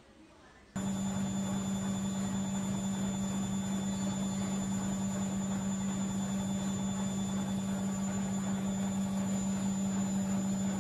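Laundry machine running under the cats: a steady low hum with a faint high whine, starting abruptly about a second in.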